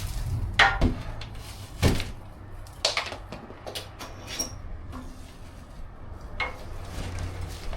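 Scattered knocks and clacks of hard objects being handled, about six in all, one followed by a short high ring about four and a half seconds in.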